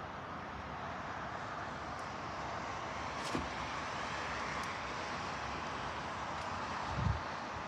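Bucket truck's engine running steadily, with a sharp click about three seconds in and a low thump near the end.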